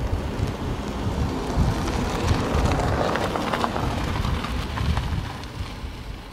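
Wind buffeting the microphone outdoors: a continuous low rumble with a broad rush of noise that swells around the middle and fades toward the end.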